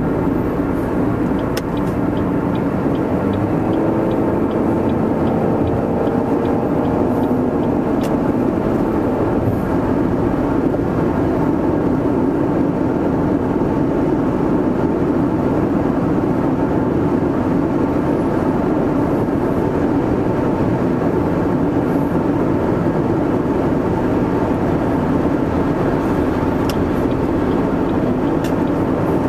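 Steady engine and road noise inside a moving car, with the engine note climbing a few seconds in as the car accelerates.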